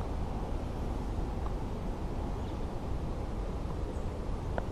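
Steady low rumble with a light hiss on an outdoor camera microphone, even throughout and with no distinct events except a faint click near the end.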